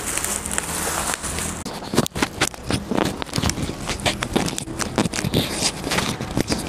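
Plastic bubble wrap rustling as it is pulled open by hand: a steady rustle at first, then dense, irregular crackles and taps from about two seconds in.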